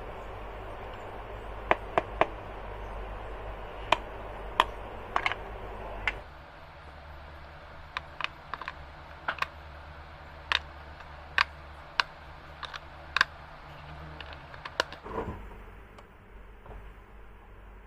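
A scattered series of sharp clicks and taps, irregularly spaced, over a low steady background hum that changes abruptly about six seconds in.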